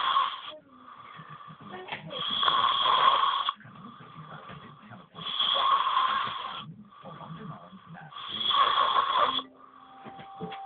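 A boy snoring loudly in his sleep: a long, rough snore about every three seconds, each lasting over a second, with quieter stretches between.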